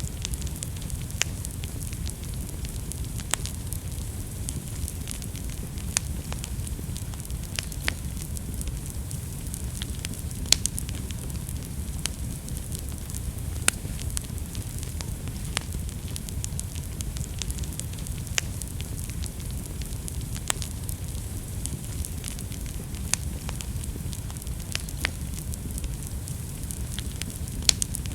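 Wood fire burning in a fireplace: a steady low rumble of flames with sharp, irregular pops and crackles every second or so.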